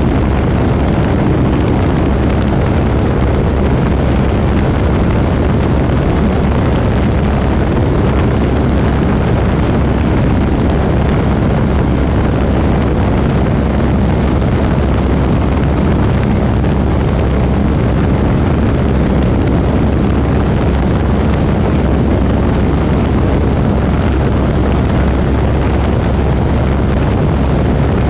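Propeller airplane's engine running steadily and loudly, with an even rush of noise and a low drone that does not change.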